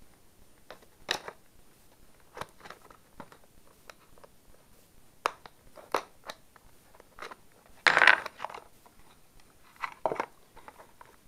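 Clear hard-plastic retail packaging cut open with a knife blade and handled: scattered clicks, taps and crinkles, with the loudest crackle about eight seconds in.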